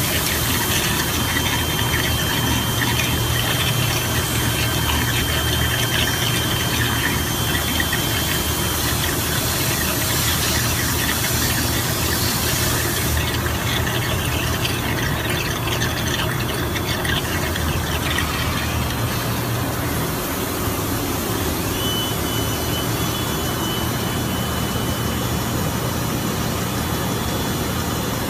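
Suction unit of a cutting-fluid filtration machine running steadily, its hose drawing oil-and-water coolant emulsion out of a CNC machine's coolant tank: a steady low hum under a broad hiss, with a thin high whistle that comes and goes.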